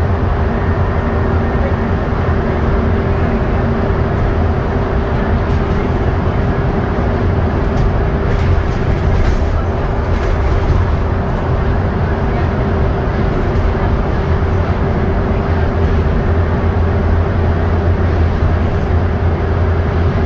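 Inside a double-decker bus cruising at motorway speed: a steady low engine drone with a constant hum above it, plus tyre and road noise, and faint rattles of the bodywork around the middle.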